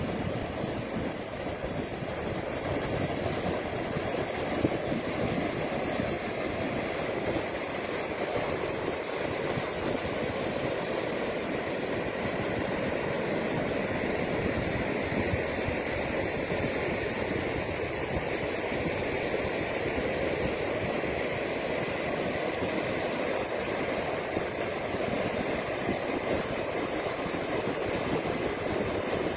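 Ocean surf breaking on a beach: a steady, continuous rush of waves.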